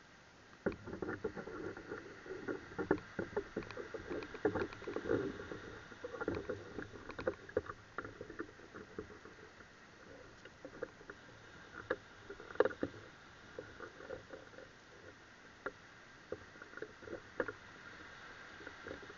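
Irregular close knocks, taps and rustles. They start about a second in and are dense for several seconds, then thin to scattered single knocks, with the sharpest one about twelve seconds in. A faint steady hiss lies underneath.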